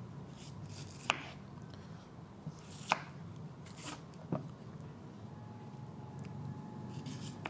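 Morakniv Craftline carbon-steel knife cutting through a firm, unripe green mango, with three sharp knocks as the blade goes through: about a second in, near three seconds and near four and a half seconds.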